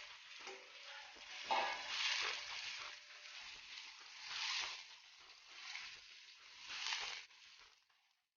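Food sizzling in a hot pan while it is stirred: a steady frying hiss that swells and fades several times, with a sharp knock about one and a half seconds in.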